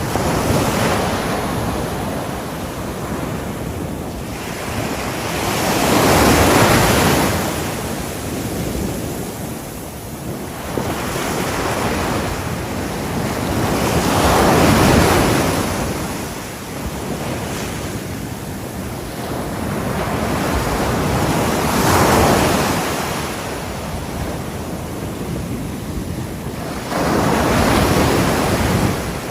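Ocean surf breaking on a shore: a continuous rushing hiss that swells into a louder wave break about every eight seconds.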